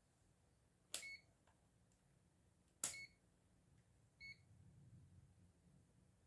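Two sharp clicks about two seconds apart, each with a short high electronic beep, then a fainter lone beep a little over a second later.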